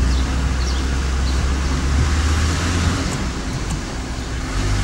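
Car engine and road noise heard inside the car's cabin while driving slowly: a steady low rumble with a hiss above it.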